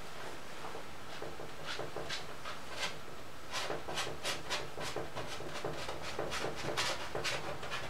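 Paintbrush scrubbing oil paint onto a canvas in short, quick scratchy strokes, several a second, mostly from about halfway through, over a low steady hum.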